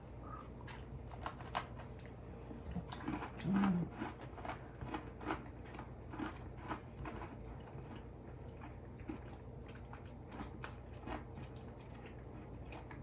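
People chewing Oreo cookies, with scattered small crunching clicks.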